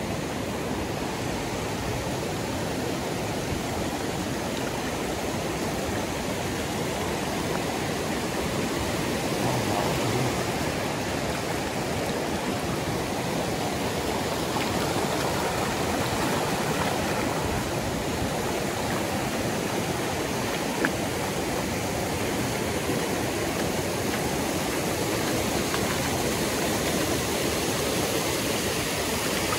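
River rapids rushing: a steady, even roar of running water, with a single brief click about two-thirds of the way through.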